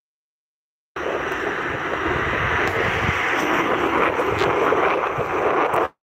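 Steady rushing of wind and sea surf, with a low rumble of wind buffeting the microphone. It starts abruptly about a second in and cuts off just before the end.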